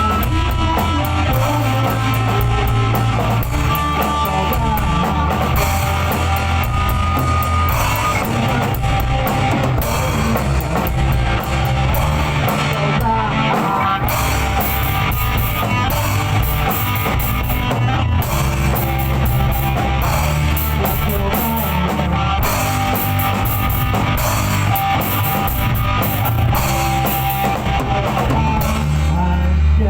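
Loud rock music with guitar and a drum kit, playing without a break.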